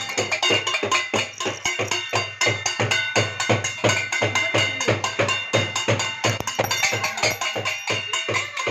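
Percussion beaten in a steady rhythm, about four strokes a second: low drum thuds with metallic ringing over them, like steel plates and bells being struck during the Janta Curfew noise-making.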